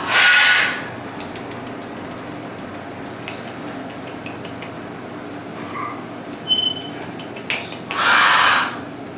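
Pet parrots calling: a loud harsh squawk at the start and another about eight seconds in, with a few short high chirps and clicks between them.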